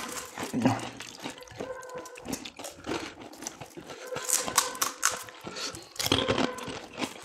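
Pani puri being eaten close to the microphone: crisp puri shells cracked open with the fingers and crunched in the mouth, with wet chewing. The crackling comes in clusters, with a burst about six seconds in as a whole puri goes into the mouth.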